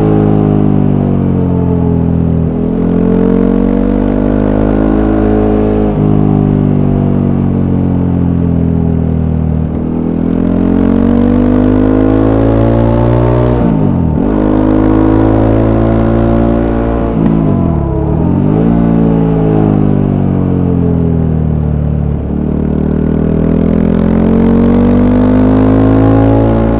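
Voge 300 Rally's single-cylinder engine on its stock exhaust, heard on board while riding. The revs rise and fall again and again through the gears, with two quick, sharp drops and recoveries in pitch around the middle.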